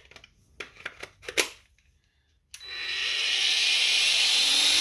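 A few light clicks and knocks, then about two and a half seconds in a Ferrex 40 V cordless angle grinder spins up straight away and runs steadily at full speed with a high whine.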